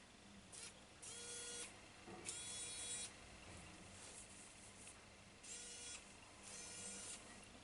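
Xiaomi electric screwdriver's small motor whirring in four short bursts as its button is pressed and released, each run lasting about a second.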